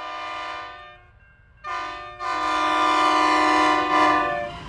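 Locomotive air horn sounding a chord of several tones: one blast of about a second, then after a short gap a longer, louder blast that cuts off near the end.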